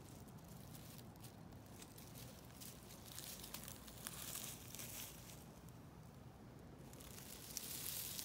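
Faint rustling and crackling of dry pine straw and leaves being disturbed, coming and going in short spells.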